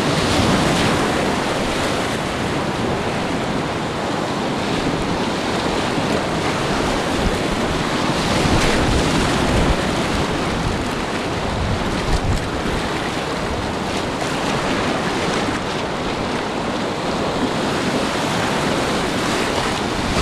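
Class IV whitewater rapids rushing and splashing loudly around a whitewater kayak being paddled through waves, with water splashing over the boater's camera.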